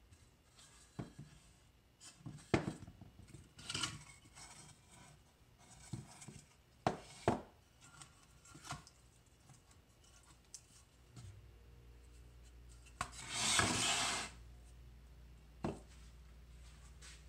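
Split wooden pieces being handled on a concrete surface: scattered knocks of wood on concrete and rubbing, with a longer scraping slide about thirteen seconds in.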